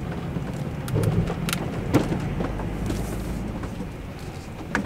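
Low rumble of a 2018 Coachmen Leprechaun Class C motorhome moving slowly, heard inside the cab, with a few scattered knocks and rattles.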